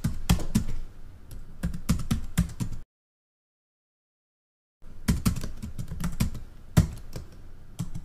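Computer keyboard typing sound effect: rapid runs of key clicks, broken by a silent pause of about two seconds in the middle.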